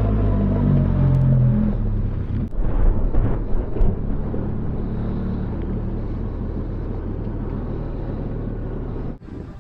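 Benelli TRK 502 X's parallel-twin engine running on the move, its pitch shifting in the first couple of seconds, with a few knocks about three seconds in, then a steady low rumble that cuts off abruptly near the end.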